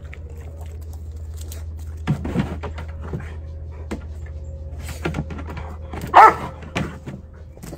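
Dog barking: a few short barks, the loudest about six seconds in, over a steady low hum.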